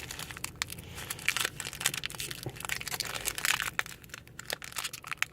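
Crinkling, crackling wrapper of a Topps Chrome baseball card pack as it is handled and torn open.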